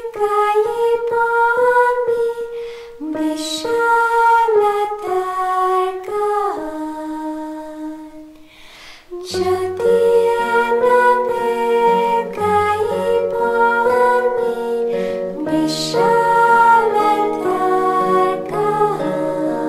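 Women's vocal group singing a slow devotional song in Bengali. After a short pause about halfway through, held low instrumental notes come in under the voices.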